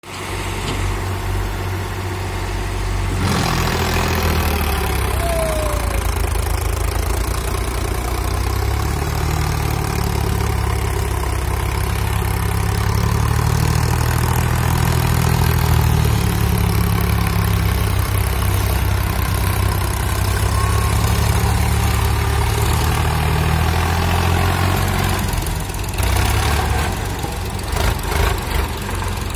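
Sonalika tractor's diesel engine running steadily under load as it hauls a fully loaded trolley of soil through mud, with a few knocks near the end.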